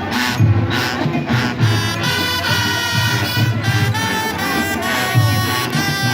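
Marching brass band playing: trumpets and trombones over a steady low beat of about two pulses a second.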